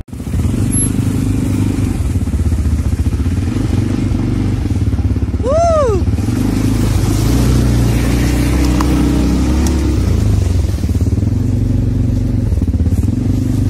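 ATV engine running steadily while riding, with a short rising-and-falling tone about halfway through.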